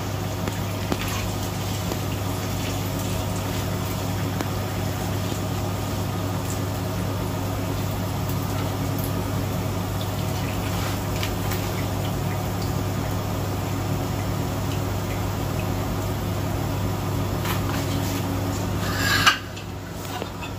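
Sambusa frying in a pan of hot oil, a steady sizzle with small crackles over a constant low electrical hum. A sharp metal clank near the end, after which the sizzle is quieter.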